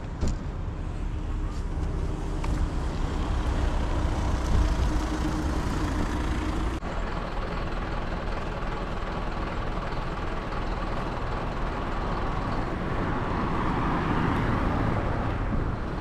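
Road traffic: a steady low vehicle rumble that swells near the end as traffic passes.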